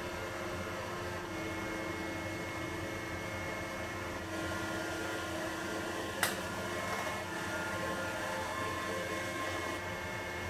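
Steady fan-like room hum with one sharp click about six seconds in, as a hardwood Ipe reflector is pushed into place inside the walnut sound path.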